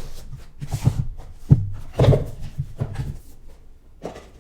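Small cardboard boxes being handled and opened: a few knocks and scrapes, the loudest about two seconds in.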